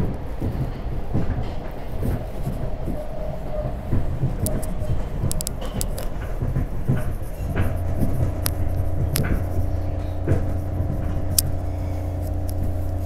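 SEPTA Market-Frankford Line rapid-transit car running along the track, heard from inside: a steady rumble of wheels on rail with scattered sharp clicks and knocks. About halfway through, a steady hum sets in and holds.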